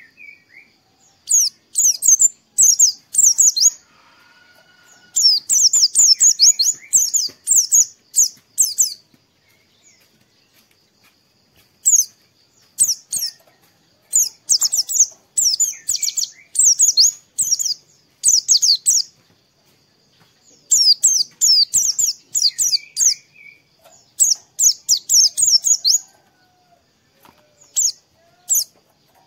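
A white-eye (pleci) singing: phrases of rapid, high twittering chirps, each one to three seconds long, with short pauses between them. A faint steady high whine runs underneath.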